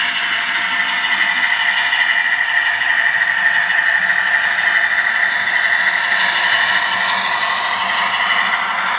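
Hornby Class 60 model locomotive's DCC sound decoder playing a diesel engine sound through its small onboard speaker as the model runs along the track. The sound is steady and thin, with little bass.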